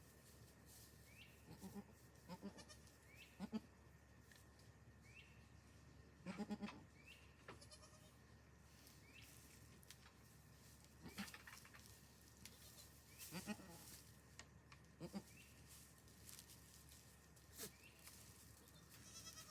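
Goat bleating faintly in short, low-pitched calls, about eight of them spread over the stretch, with small faint chirps between them.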